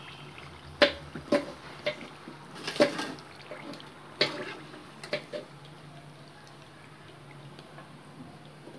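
Wire-mesh skimmer clinking and scraping against an aluminium kadai as fried samosas are scooped out of hot oil. There are several sharp clinks in the first half, then it goes quieter, over a faint steady sizzle of the frying oil.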